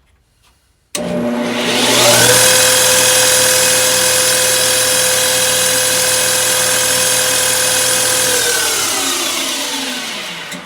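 King Industrial 10x22 metal lathe starting up about a second in, its motor and belt drive winding up to a steady whine as the empty chuck spins. It is switched off near the end and coasts down with a falling pitch. The owner finds the spindle speed extremely fast for this belt setting.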